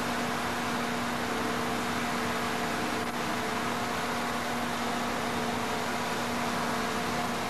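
Steady hiss with a low, even hum of a few fixed tones underneath, unchanging throughout.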